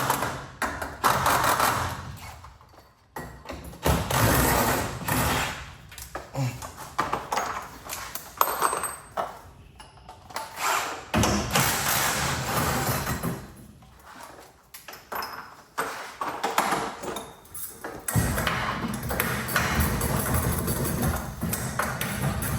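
Irregular metallic clinks, pings and knocks of tools and steel hardware being worked on garage door torsion spring parts. A steadier rustling noise comes in near the end.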